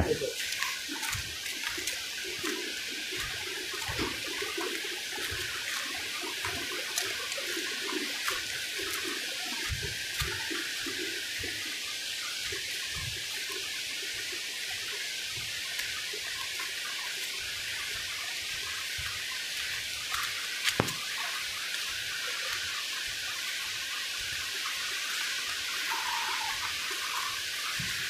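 River water flowing: a steady rushing sound, with a few faint knocks and clicks scattered through it.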